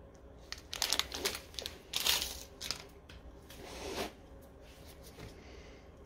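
Crinkling and rustling of the small clear plastic packet of an SKF 6001-2RS bearing being handled in nitrile-gloved hands, in several bursts through the first two-thirds.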